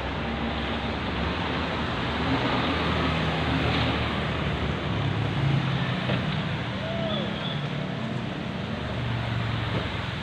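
Road traffic noise: a steady wash of passing vehicles' engines and tyres, with low engine hums rising and falling.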